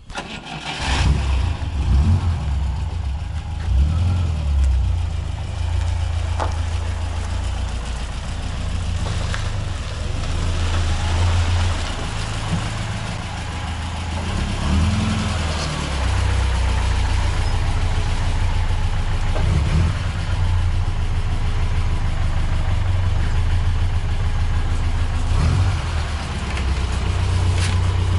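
A car engine is started and then runs steadily at low revs, with small rises and falls in revs.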